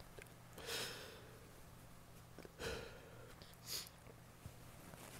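A person's loud breathy sniffs and exhales, three of them, during a sneezing fit set off by heavy air freshener spray, over a faint low hum.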